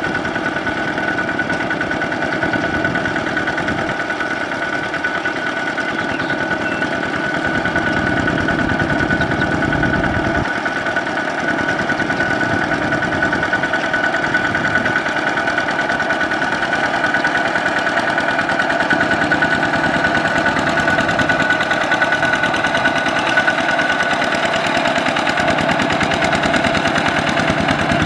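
Kubota RT120 walking tractor's single-cylinder diesel engine running steadily under load while its cage wheels churn a flooded rice paddy, with a constant high tone over the engine note. It gets somewhat louder in the second half as the tractor comes closer.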